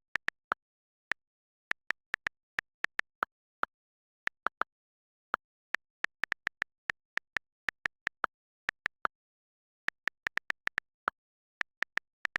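A run of short, sharp clicks at uneven spacing, up to several a second, with dead silence between them.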